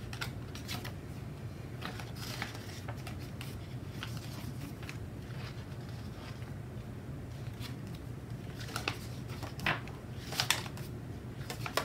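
Glossy sticker-book pages being flipped: soft paper rustles and flaps, with a few sharper page snaps in the last few seconds, over a faint steady low hum.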